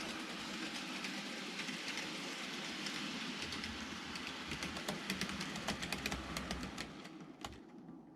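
TOMIX N-gauge model of a KiHa 26 diesel railcar running on track: a steady motor whir with rapid clicks of the wheels over the rail joints, growing fainter near the end as it moves away.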